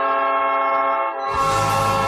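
NHL arena goal horn blaring one steady, loud note. About 1.3 s in, a noisy crowd roar and the low beat of the goal song come in under the horn.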